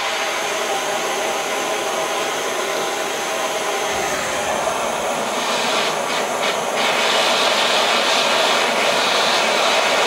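Hand-held propane torch burning with a steady hissing rush of flame. It grows a little louder and brighter about seven seconds in.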